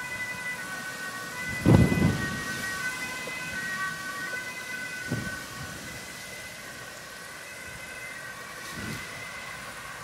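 Wind buffeting the microphone in gusts, the strongest about two seconds in and weaker ones near the middle and near the end, over a few faint steady high tones that are held and shift in pitch now and then.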